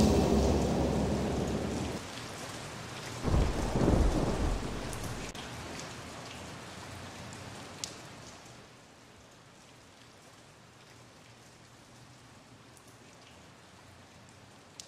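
Thunder and rain: a rumble of thunder dying away under the hiss of rain, a second low rumble about three to four seconds in, then the rain fading to a faint hiss.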